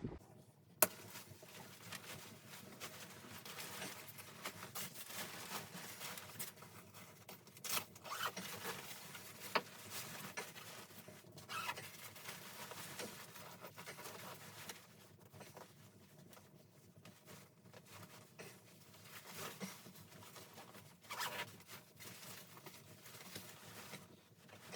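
Faint rustling and handling noises with scattered small clicks, and a few sharper clicks and knocks, the first about a second in.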